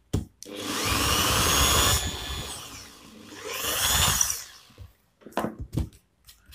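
Electric hand drill with a small twist bit boring a hole into hardwood for a blind rivet, running in two long surges with its whine rising and falling, then stopping. A few short light knocks follow near the end.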